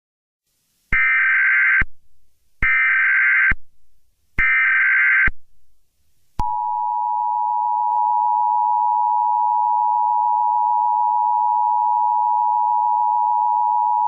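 Emergency Alert System tones: three short bursts of SAME header data, each under a second, then the steady two-tone EAS attention signal (853 and 960 Hz), which starts about six and a half seconds in. This is the header of an Emergency Action Notification.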